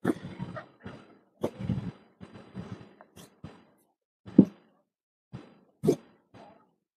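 Handling noises from marking cloth on a table: a long metal tailor's ruler is set down with two sharp knocks, about four and six seconds in, among softer scraping and rustling.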